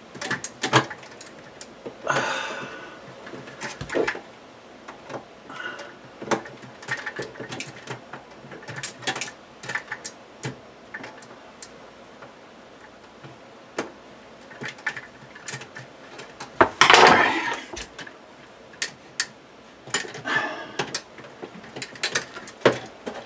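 Irregular small clicks, taps and scrapes of hands and a screwdriver working wire through the connector of a plastic under-cabinet light fixture. There is a short louder rustling rush about 2 seconds in and a longer, louder one about 17 seconds in.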